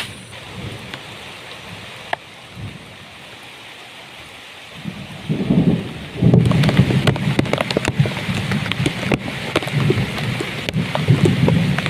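Steady rain falling in the forest. About five seconds in, a loud deep rumble of thunder sets in and keeps going, with heavy drops pattering close by.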